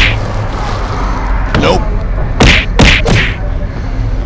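Gloved hand tapping the fuel-grade button on a gas pump, about half a dozen sharp taps, the loudest at the start and near three seconds in.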